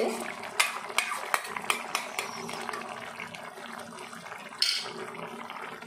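A spoon stirring a simmering grape-and-tomato chutney, clinking against the pan several times in the first two seconds, over the steady hiss and bubbling of the thick sauce. A brief louder scrape comes about four and a half seconds in.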